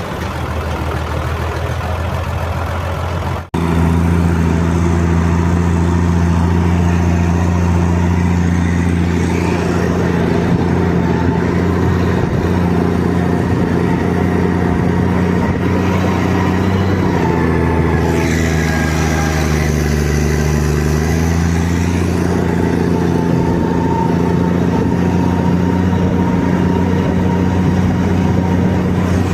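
Large Valmet tractor's diesel engine running steadily under load, pulling a land plane. About two-thirds through, the engine speed sags for a few seconds, then picks back up. There is a brief drop-out about three seconds in.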